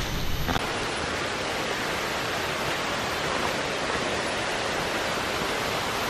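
Steady rush of a jungle waterfall and its rocky stream, an even hiss of falling water.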